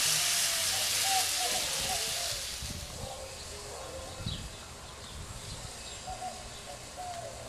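Barbecue-sauced chicken sizzling on a gas grill's grate, fading away after about two to three seconds. Birds chirp now and then in the background.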